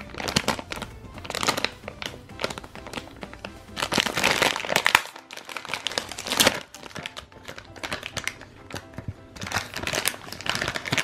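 Plastic foil blind-bag packet crinkling in irregular bursts as it is torn open and handled, loudest about four seconds in. Background music plays throughout.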